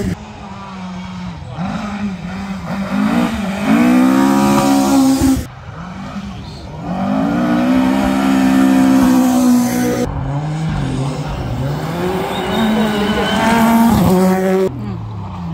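Rally car engines revving hard as they pass, the pitch climbing through each gear and dropping at the shifts. The sound is several separate passes that cut from one to the next, about every five seconds.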